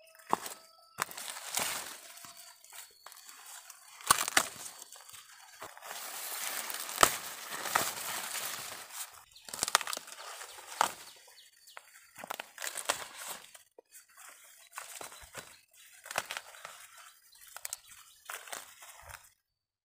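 Dry corn leaves and stalks rustling, with a string of sharp snaps as ears of sticky corn are broken off the stalks by hand; the rustling is densest and longest about six to nine seconds in.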